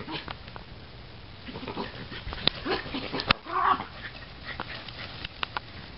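Miniature schnauzers playing, giving short yips and whines, with a louder yip about three and a half seconds in. Sharp clicks are scattered throughout.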